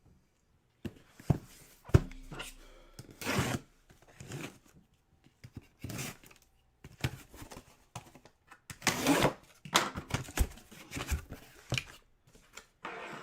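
A cardboard box being opened and its packaging handled: irregular rustling and tearing with scattered knocks, one sharp knock about two seconds in.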